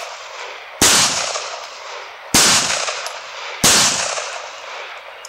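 Three aimed shots from a 9mm 1911 pistol, fired about a second and a half apart, each shot trailing off in an echo that lasts about a second.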